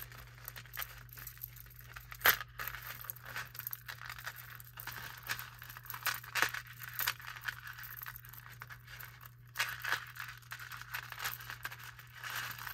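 Necklace and costume jewelry handled by hand: chain links and beads clinking and rattling in many small, irregular clicks, the loudest about two seconds in, over a faint low hum.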